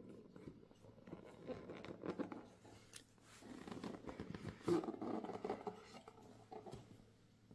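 Hands handling and opening a cardboard smartphone box: rustling and scraping with light taps and clicks, loudest a little before five seconds in as the lid comes off.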